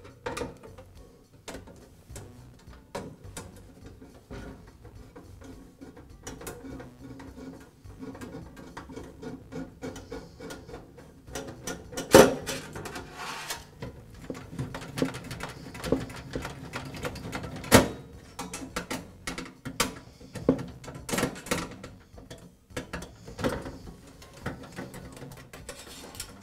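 Hand screwdriver backing sheet-metal screws out of a NuTone bathroom vent-fan's metal housing: small scraping and ticking as the screws turn, with a few sharp metallic clicks, the loudest about twelve and eighteen seconds in.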